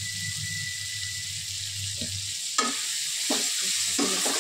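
Soya chunks and vegetables sizzling in a non-stick pan; about two and a half seconds in, a metal slotted spoon starts stirring them, scraping and knocking against the pan in repeated strokes.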